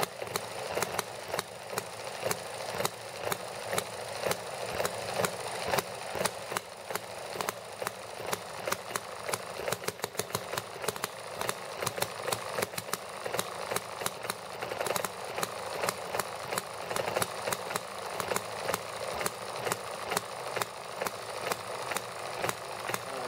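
Small horizontal model hit-and-miss gasoline engine running, its governor making it fire in sharp pops at uneven intervals over a rapid mechanical clicking.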